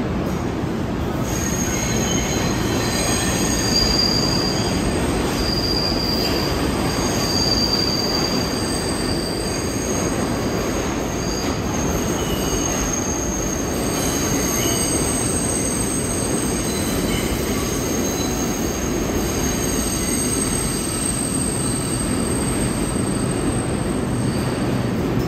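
New York City Subway R142 train pulling into the station and stopping, with a steady rumble and a high, wavering metallic squeal from its steel wheels on the rails that starts a second or two in and fades near the end.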